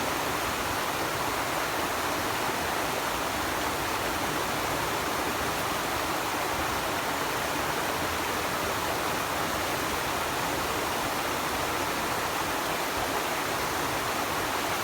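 Steady rushing of stream water, an even hiss that never changes.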